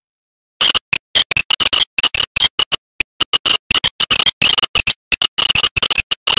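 Turntable scratching with rapid crossfader cuts, chopping a bright record sound into short stuttering bursts several times a second. It starts about half a second in, with clean silent gaps between the cuts.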